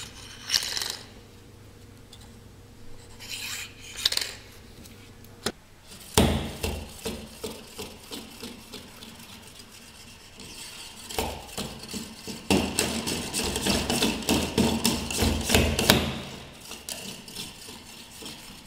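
Neodymium ring magnets scraping and sliding along a metal rod, metal rubbing on metal. From about six seconds in there is dense clicking and clattering as the stacked ring magnets are bounced up and down the rod over a repelling base magnet.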